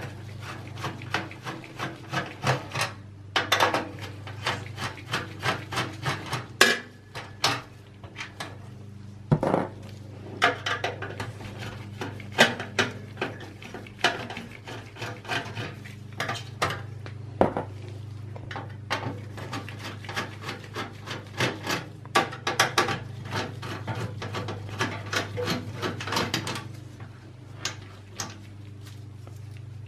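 Screwdriver backing out motherboard screws in a steel PC chassis: many small clicks, scrapes and taps of metal on metal, irregular throughout, over a low steady hum.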